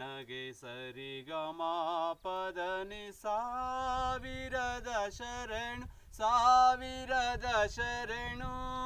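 A man singing unaccompanied. He sings quick, ornamented runs of notes, then from about three seconds in holds long notes that waver and slide between pitches.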